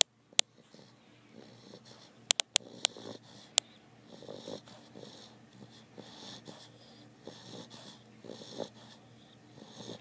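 Bulldog snoring in its sleep, a run of raspy snoring breaths one after another, with a few sharp clicks in the first four seconds.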